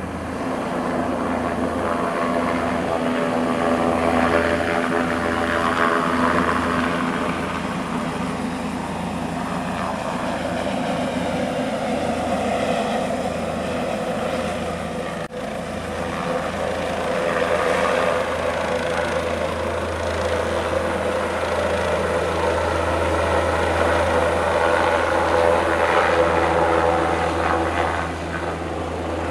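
Helicopter lifting off and climbing, its rotor and engine running steadily throughout.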